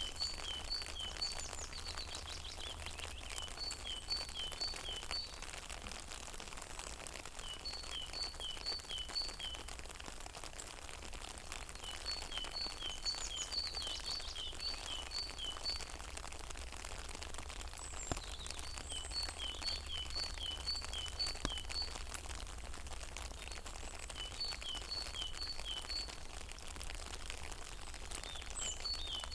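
Rain pattering on a pond in a dense scatter of small drop ticks, over a steady low rumble. A songbird repeats a short phrase of four to six high-low note pairs about every four seconds.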